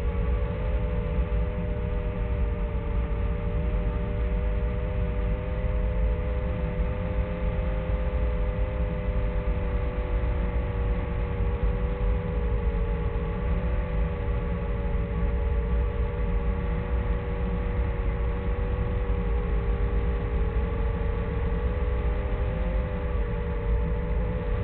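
Small drone's brushless motors whining steadily, their pitch wavering up and down slightly as the throttle changes, over a constant low rumble of wind.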